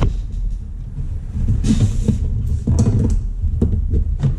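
Cardboard box being handled and its flaps pulled open: a few short rustling, scraping noises over a steady low rumble.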